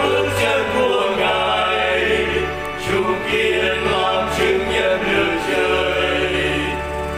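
Vietnamese Catholic hymn sung by voices over instrumental accompaniment, with a sustained bass line that changes note every second or two.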